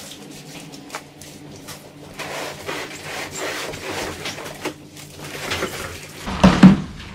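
Cardboard rubbing and scraping as a large refrigerator carton is handled and its plastic packing straps are cut away, then two loud low thumps about six and a half seconds in as the carton is pushed and tilted.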